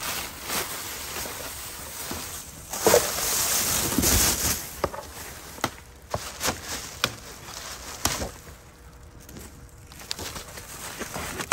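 Trash being rummaged through: plastic garbage bags and bubble wrap rustling and crinkling, with scattered knocks and clunks of items being shifted. The loudest, densest rustling comes about three to four and a half seconds in.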